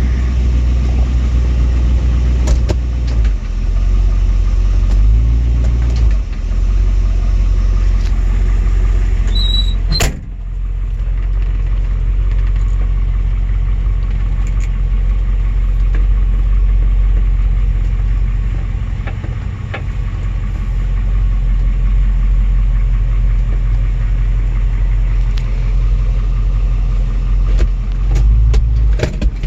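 Small-block Chevrolet V8 running at idle with a persistent knock, which the owner suspects is rod knock. A sharp click sounds about ten seconds in.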